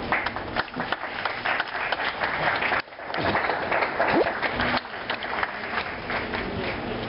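Audience applauding, many hands clapping together; the sound drops out briefly a little under three seconds in, then resumes.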